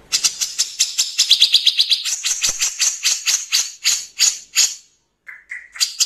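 Grey-cheeked bulbul (cucak jenggot) giving its harsh rapid-fire 'tembak kasar' call. It is a fast series of rasping notes, about seven a second, that slows over a few seconds and breaks off near the end. Two lower notes follow, then a fresh fast series begins.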